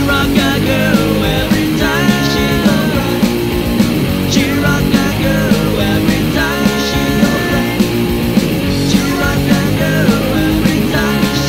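Loud punk rock band recording: distorted electric guitars, bass and drums playing at a steady beat, with a lead line of held notes that bend up and down in pitch.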